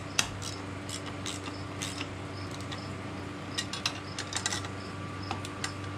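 Ratchet wrench clicking in short, irregular runs with light metal clinks as bolts on a steel mounting bracket are tightened. A steady low hum runs underneath.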